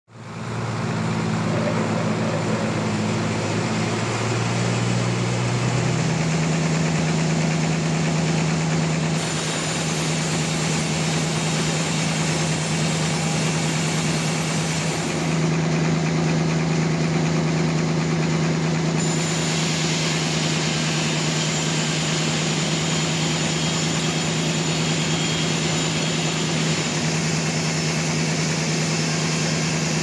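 Band sawmill running with a steady mechanical drone while sawing a large trembesi log; the pitch of the hum steps down about six seconds in, and the sound changes abruptly a few more times.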